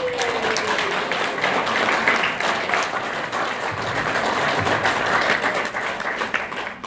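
Audience applauding: steady clapping from a roomful of people that dies away near the end.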